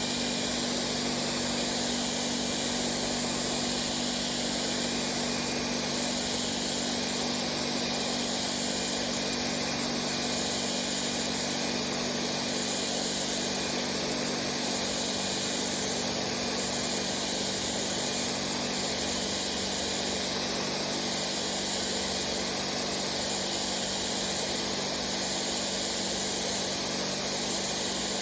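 Pressure washer running steadily: a constant hum under the hiss of the water jet, with the hiss swelling slowly about every two seconds.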